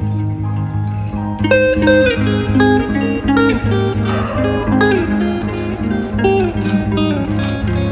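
Background music: a guitar tune over steady low notes, with a plucked melody coming in about a second and a half in.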